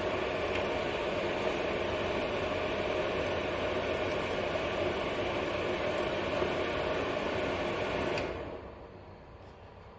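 Pro Breeze 2000W mini ceramic fan heater running steadily with its fan noise, then switched off about eight seconds in, the sound dying away over about a second.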